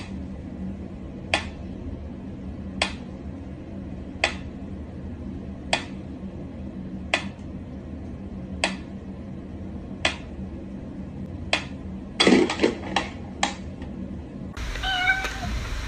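Mechanical pyramid metronome ticking slowly and evenly, one sharp tick about every second and a half. Past the middle comes a quick run of several louder knocks.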